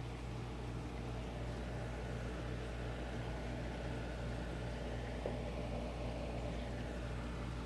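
Steady low electrical hum and hiss of a reef aquarium's running pumps and water circulation, with one faint tick about five seconds in.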